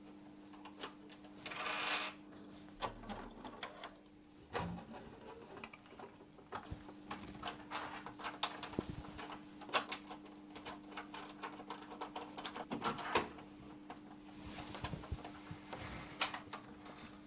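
Irregular metallic clicks, taps and short scrapes as a smart lock and its knob are handled and fitted into a door's cylinder, over a faint steady hum. The clicking is thickest in the middle.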